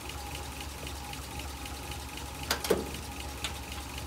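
1962 GMC truck's V6 engine idling steadily, with a light, regular ticking about five times a second. A couple of sharp clicks come about two and a half seconds in.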